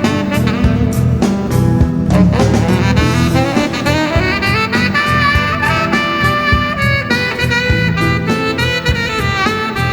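Cannonball tenor saxophone playing a melody of held notes, some sliding into pitch, over a backing track with drums.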